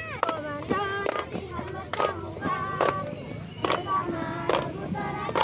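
A group of young girls sings a scout cheer song together, with some held notes. Sharp hand claps keep a steady beat a little faster than once a second.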